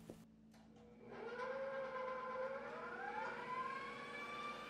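KitchenAid stand mixer switched on: a few faint clicks, then its motor whine rises in pitch as it speeds up and settles into a steady run, the wire whisk beating stiff egg whites.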